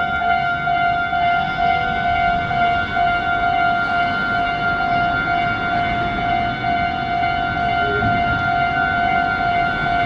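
Electronic warning bell of a Japanese railway level crossing ringing steadily, a single repeating pitched tone, sounding while the crossing lights flash and the barriers lower for an approaching train.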